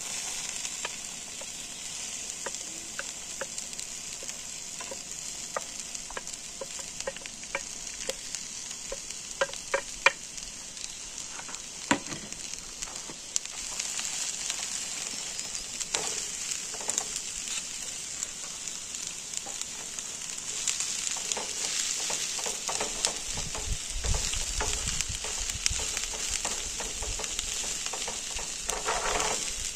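Chopped onion and peppers sizzling in a frying pan on a portable camping gas stove, the steady hiss starting as the vegetables are tipped in. A wooden spatula knocks and scrapes against the pan as they are stirred.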